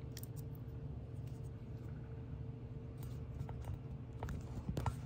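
Small, sparse clicks and taps of plastic being handled, a syringe and a printer ink cartridge, most of them in the last two seconds, over a steady low hum.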